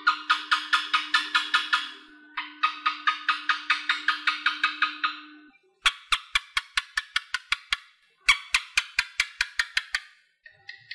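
Asian house gecko calling: four runs of rapid, sharp chirping clicks, about seven a second, each run separated by a brief pause. A steady low hum sits under the first two runs and stops about halfway through.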